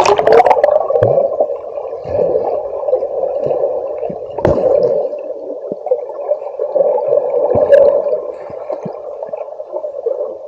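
Rushing river water, a steady, muffled wash with a few faint knocks.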